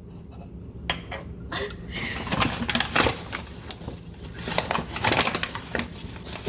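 Kitchen utensils clinking and knocking: measuring cups and a spoon tapping against a mixing bowl while flour is measured out, in irregular clicks and taps.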